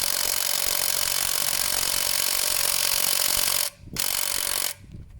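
Cordless impact wrench hammering on a car wheel nut in one long burst of about four seconds, then a short second burst after a brief pause. The nut does not come loose.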